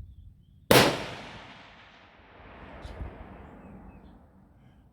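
A single .308 rifle shot from a Remington 700 Tactical about a second in, followed by a long rolling echo that fades away over about three seconds.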